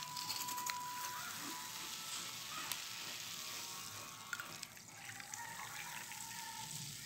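A drink being poured from an aluminium can into plastic cups, a steady pouring hiss.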